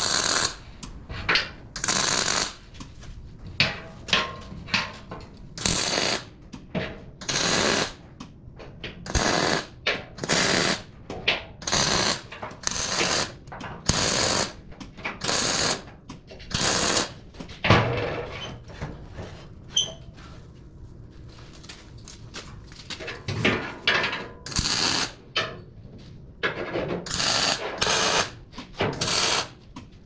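MIG welding gun laying a series of short tack welds on the steel bottom plate of a skid steer sweeper bucket: about twenty brief crackling arc bursts, each under a second, with a pause of a few seconds past the middle.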